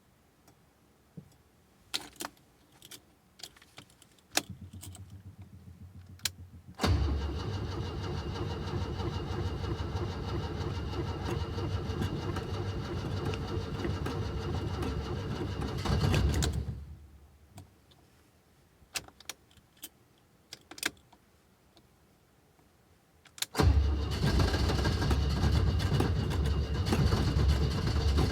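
Alfa Romeo engine on a hard cold start: a few key clicks and a brief hum, then it turns over for about ten seconds, swelling near the end before dying away. After more clicks, a second attempt fires and the engine keeps running.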